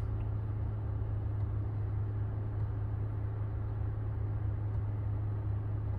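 Steady low hum and even airy hiss of a car cabin, with the climate control running.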